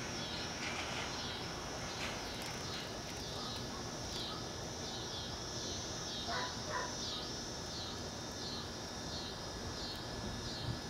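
Night insects such as crickets or katydids singing in a steady high-pitched chorus that pulses in a repeating rhythm, about once every three-quarters of a second. Two brief lower chirps come about six and a half seconds in.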